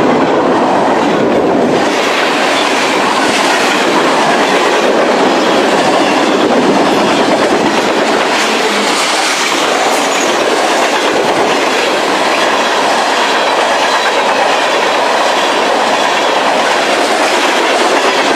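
Freight cars of a long mixed-freight train passing fast, their steel wheels clacking over the rail joints in a steady, loud rush.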